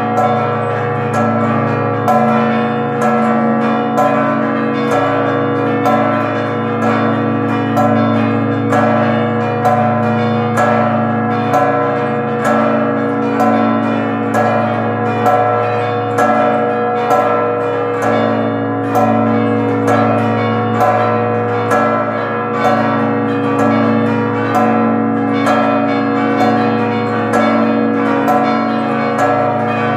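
Church tower bells ringing a festive peal for the Forty Hours devotion: several bronze bells struck in a steady, repeating rhythm, a few strikes a second, over the lingering hum of the largest bells.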